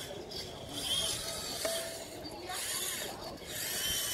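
Electric drive motors and plastic gearing of a radio-controlled Bruder CAT compact loader model whining as it drives over sand. The sound swells and fades in several bursts as it moves.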